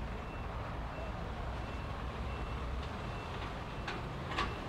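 A vehicle's reversing alarm: short high beeps about every two-thirds of a second, faint over a steady low engine rumble. A sharp click or knock comes near the end.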